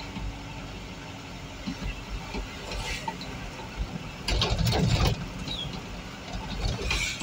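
Inside the cab of a moving vehicle: the engine running steadily under the rattle of the cab, with a louder rattle about four seconds in that lasts about a second, and a shorter one near the end.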